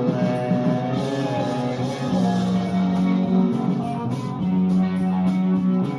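Music: a rock song with guitar.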